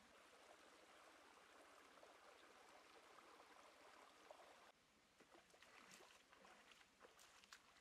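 Faint, steady rushing of a shallow rocky stream, which stops abruptly about two-thirds of the way through. After that come scattered faint splashes and light ticks as bare feet wade through shallow water.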